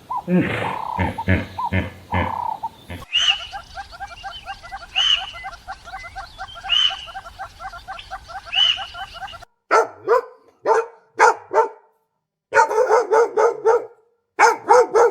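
Frogs croaking in a rapid pulsing trill, with a higher chirp about every two seconds, then a dog barking: a few single barks, and after a short silence a quick run of barks.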